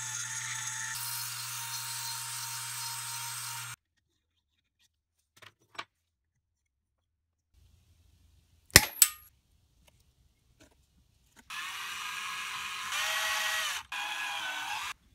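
A Dremel rotary tool runs steadily for a few seconds, spinning a metal pin in its chuck against a file, then stops. Two sharp clicks follow. After that, a cordless drill runs for about three and a half seconds, boring into a wooden block, and is louder partway through.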